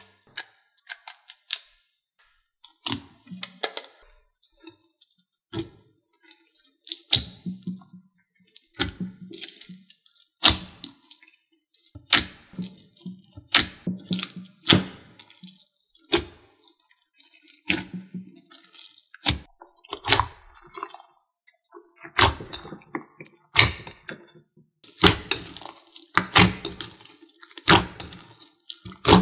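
Clear glitter slime squished and kneaded by hand in a glass bowl: an irregular run of sticky, wet clicks and pops, thickening into denser clusters near the end.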